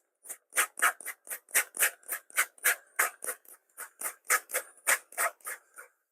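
Hand trigger sprayer squeezed rapidly and repeatedly, about three to four short hissing squirts a second, the water stream hitting the tent fabric to knock off bird droppings.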